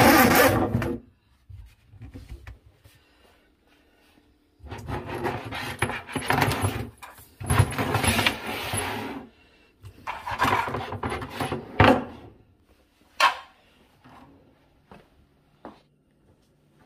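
Bursts of rubbing, scraping and knocking from handling inside a wooden kitchen base cabinet among the dishwasher hoses, with a few sharp clicks, the loudest about 13 seconds in.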